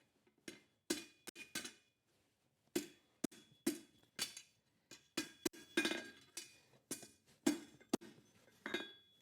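Hand hammer striking a hot 1/2-inch square steel bar on an anvil while bending a hook: a series of irregular metallic blows, each ringing briefly, with a short pause about two seconds in.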